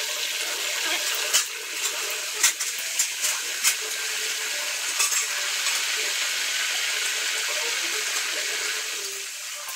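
Nendran banana slices deep-frying in hot oil in a metal kadai: a steady sizzle. A metal spoon and skimmer stir the slices, clinking sharply against the pan several times in the first five seconds.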